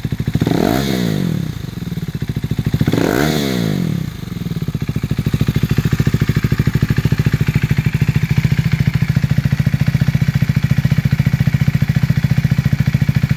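2017 KTM 390 Duke's single-cylinder engine running through a Leo Vince slip-on exhaust with a de-catted mid pipe, stationary. It is revved twice in the first few seconds, each rev rising and falling back, then settles to a steady idle.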